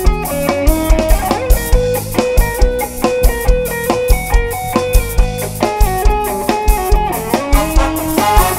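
Live band playing an instrumental passage: electric guitar melody over a drum kit with a steady kick-drum beat.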